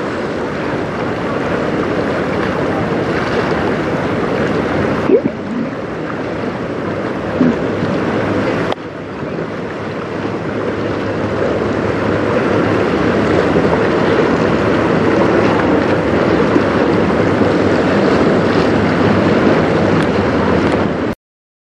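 Wind on the microphone and choppy river water lapping, a steady rushing noise with a sudden jump in level twice. It cuts off abruptly near the end.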